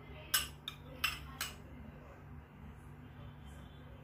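Metal spoon clinking against a glass bowl four times in about a second and a half while scooping out solidified coconut oil.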